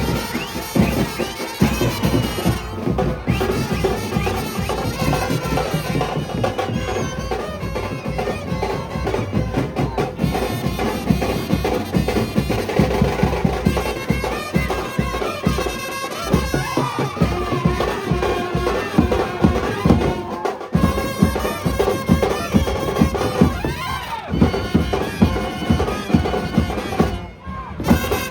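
A brass band playing a melody on horns over a steady, dense drum beat, with brief breaks in the playing now and then.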